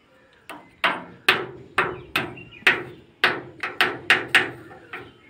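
Thin wooden stick repeatedly striking a painted sheet-metal gate: about a dozen sharp knocks, two or three a second, irregular, starting about half a second in, each with a short ring.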